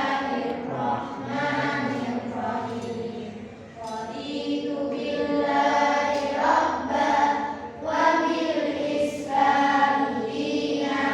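A group of voices singing a song together, in held notes with short breaks between phrases.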